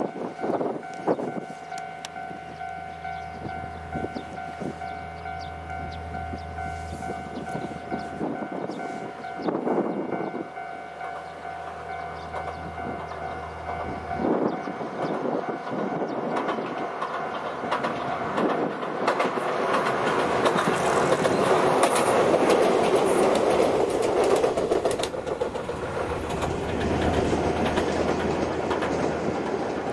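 Ichibata Electric Railway 1000 series electric train (ex-Tokyu 1000 series) approaching and running past on the line, its wheels clattering on the rails. The running noise builds up to a peak about 20 to 25 seconds in as the train goes by, then eases off.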